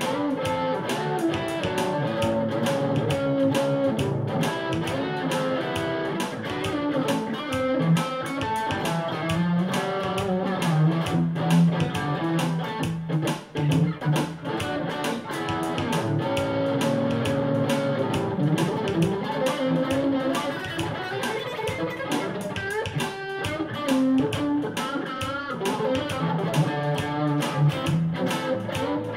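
Electric guitar playing an instrumental gospel shuffle, a country shuffle rhythm with continuous picked notes.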